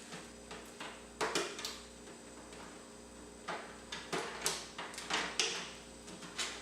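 Body clips being pulled off the body posts of an Arrma Fury BLX RC short-course truck, and its plastic body shell being handled. A series of light, irregular clicks and knocks with some scraping, coming in clusters about a second in and again past the middle.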